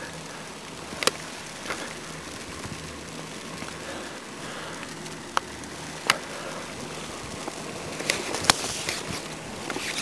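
Footsteps shuffling and crunching through deep fresh snow, a steady noise broken by a handful of sharp clicks and knocks.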